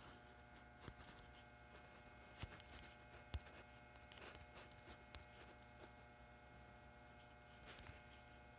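Near silence: a faint steady electrical hum, with a handful of faint, scattered taps of fingertips on a phone's touchscreen keyboard.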